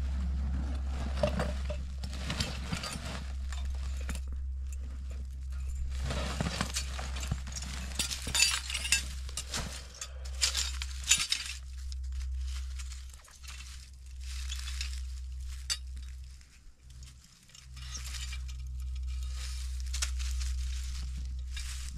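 Steel beaver-trap hardware clinking and rattling as it is handled and set, in repeated bursts of sharp metallic clinks.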